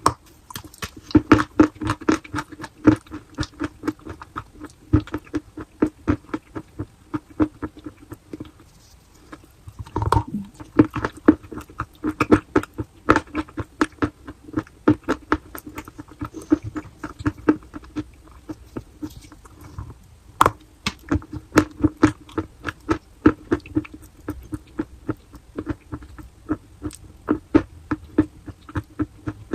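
Chalk being bitten and chewed close to the microphone: quick, crisp crunches several times a second, easing off briefly twice.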